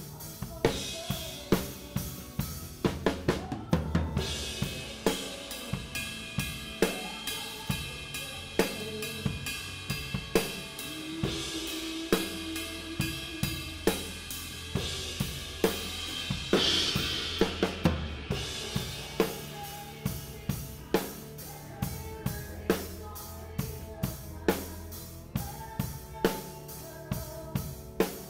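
Live drum kit, a 1972 Ludwig maple kit, playing a slow ballad groove in a close-miked mix heavy on the floor toms, with kick and snare hits falling steadily. Cymbals wash through the middle stretch, loudest about seventeen seconds in, over the band's sustained backing.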